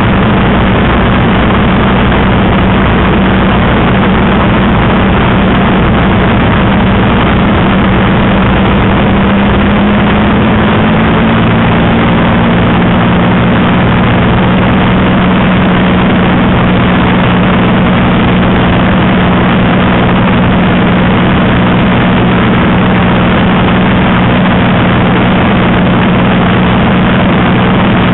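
Spitfire's V12 piston engine running steadily in cruise, heard from inside the cockpit with heavy airflow noise, its drone shifting slightly in pitch about ten seconds in.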